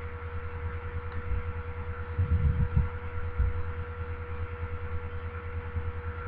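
A steady low electrical hum, with a few soft low thumps a little past the middle.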